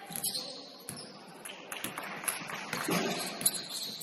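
Basketball game play: scattered knocks and bounces of the ball and players' footwork on the court over a busy background of voices and movement.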